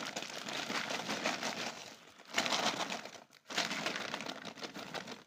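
Plastic bag of grain mushroom spawn crinkling as it is squeezed and shaken, with loose spawn grains pouring out into a plastic tub of coco peat. It comes in three bouts with brief pauses about two and three seconds in.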